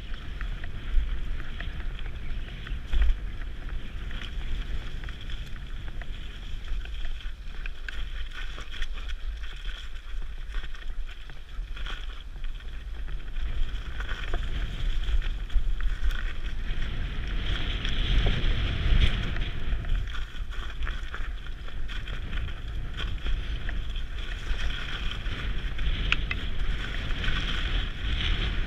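Mountain bike riding down a snowy, muddy trail, heard through a helmet camera: steady wind rumble on the microphone with continuous tyre and trail noise and scattered short knocks from the bike.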